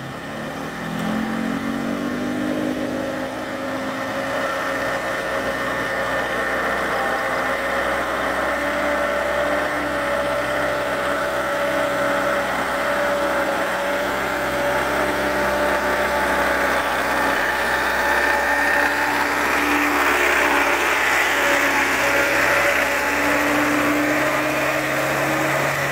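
A motor vehicle's engine pulling up a steep hill under load, its pitch rising a little at first, then holding steady as it grows gradually louder.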